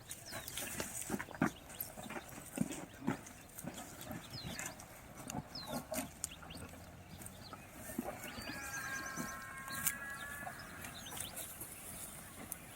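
Scattered knocks and rustles with small birds chirping, and one drawn-out animal call about eight and a half seconds in.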